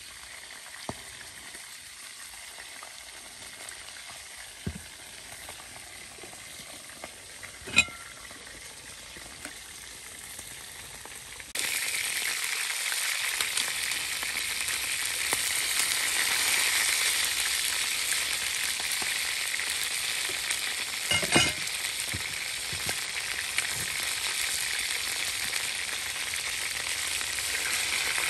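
Food frying in a pan, a steady sizzle that jumps suddenly much louder about twelve seconds in. A few sharp knocks come through, the loudest about eight seconds in and about twenty-one seconds in.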